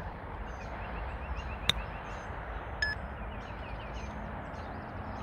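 A 60-degree Callaway Jaws MD5 wedge striking a golf ball once on a 30-yard pitch: a single sharp click about a second and a half in. A short high tone follows about a second later, over faint repeated chirping and steady outdoor background noise.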